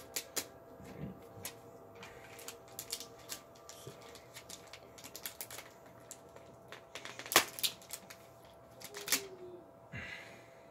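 Clear plastic tear-off films being handled and pressed onto the posts of a racing helmet's visor: a run of light plastic clicks and crinkles, the sharpest about seven and a half seconds in.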